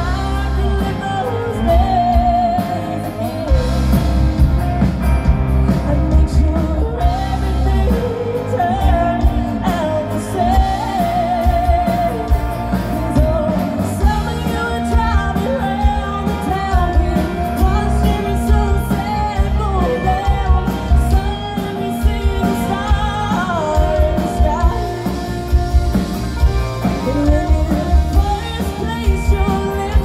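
Live amplified rock band playing, with a woman singing over guitars, bass and drums, heard from within the crowd.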